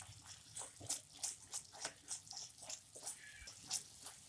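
Spatula stirring and scraping a thick curd-and-masala paste around a non-stick kadhai: short, soft scrapes and squelches in quick, irregular succession as the masala is fried.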